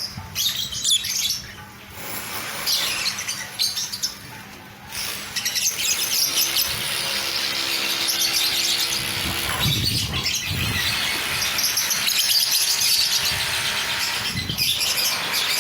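A flock of lovebirds chattering, many shrill chirps overlapping. Sparser for the first few seconds, then a steady dense din from about five seconds in.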